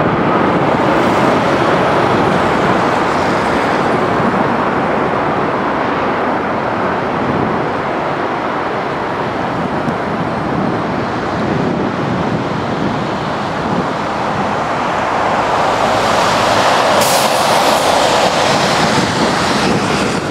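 Boeing 767-400ER's jet engines as it lands: a steady, loud roar and rumble, with wind buffeting the microphone. The noise swells again in the last few seconds.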